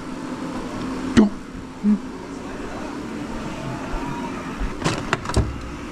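A sharp knock about a second in and a cluster of clicks and knocks near the end, from tools and metal engine parts being handled during a two-stroke motorcycle top-end teardown. A steady hum runs underneath.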